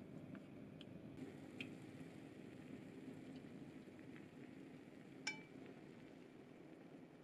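Broth simmering faintly in a clay pot of udon, with light clicks of chopsticks moving the noodles. One sharp, ringing clink of a utensil against the pot about five seconds in.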